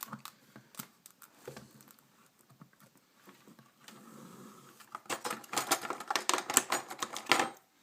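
Scissors and a taped package being handled: a few scattered clicks, then from about five seconds in a couple of seconds of rapid clicking, scraping and rustling.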